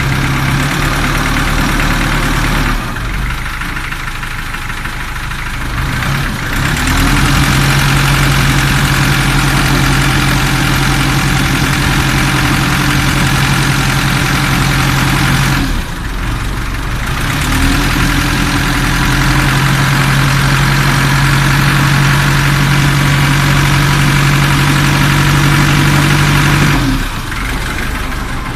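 A river ferry boat's engine running under load with a steady low hum, throttled back a few seconds in, revving back up, easing off briefly midway, then running hard again before throttling back near the end.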